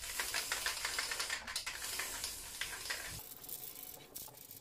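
Aerosol can of matte spray lacquer hissing as it sprays a coat onto wood, stopping about three seconds in.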